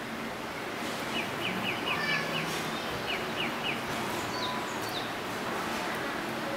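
Birds chirping in runs of short, quick notes over steady background noise.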